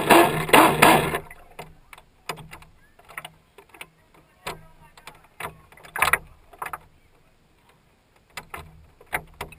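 Loud rushing water against a small radio-controlled boat's hull for about the first second, then cutting off into irregular slaps and knocks of small waves against the hull, a few each second.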